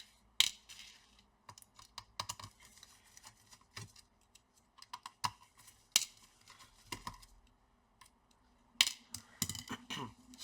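Scattered light clicks and taps of a screwdriver, screws and plastic laptop parts being handled during disassembly, with a busier run of clicks about nine seconds in.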